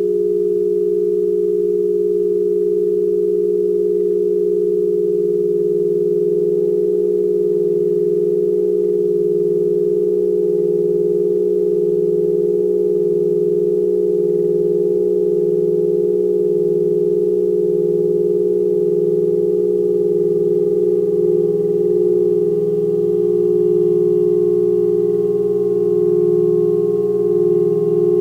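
Sustained just-intonation drone from a saxophone quartet with electronics: a few steady held tones, the strongest in the middle register. A slow, even pulsing enters the lower tone a few seconds in, and the upper tone begins to waver near the end.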